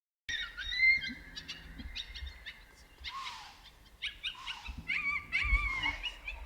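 Fawn distress call played through a predator caller: repeated wavering, high bleating cries.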